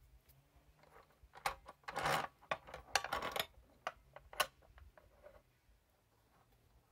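A metal pipe clinking, knocking and scraping against the metal vise clamp and base of a cut-off saw as it is laid in and set against the clamp. It is a scatter of small clicks with a short stretch of scraping in between, the sharpest clicks a little over a second in and near four and a half seconds.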